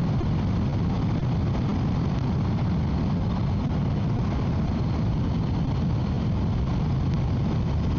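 Motorcycle riding at speed: a steady, unchanging engine drone with wind noise rushing over the microphone.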